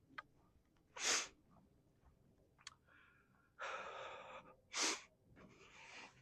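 Quiet, short, sharp breath sounds, one about a second in and another near five seconds, with stretches of softer hissing noise between them.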